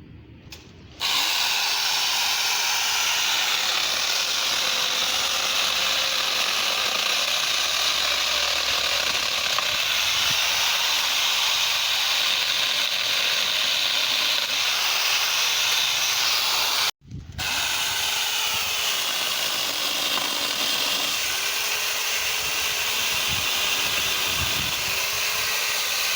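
Mini angle grinder fitted with a chainsaw adapter, running at full speed. It switches on about a second in, cuts off abruptly around two-thirds of the way through, then starts again and keeps running.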